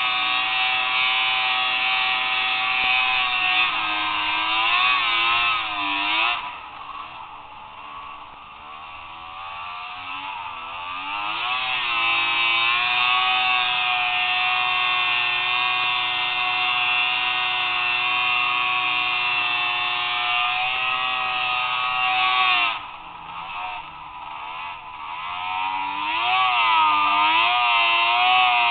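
Arctic Cat ZRT three-cylinder two-stroke snowmobile engine running hard under a rider. The throttle is let off suddenly about a quarter of the way through and again near the end, the engine dropping, then winding back up, its pitch wavering as it revs.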